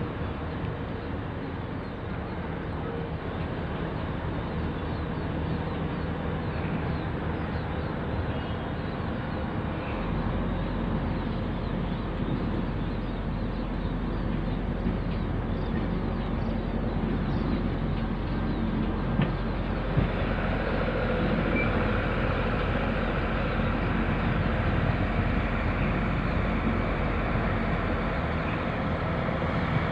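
Steady diesel engine rumble of a rail maintenance vehicle, growing fuller and a little louder about two-thirds of the way through.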